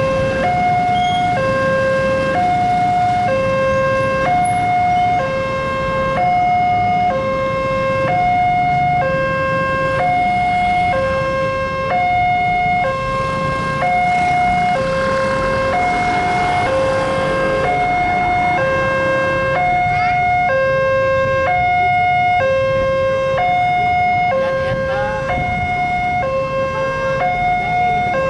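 Railway level-crossing warning alarm sounding an electronic two-tone chime, a lower and a higher note alternating steadily, about one full low-high cycle every two seconds: the signal that a train is approaching and the barrier is down. Motorbike and road traffic rumble sits underneath.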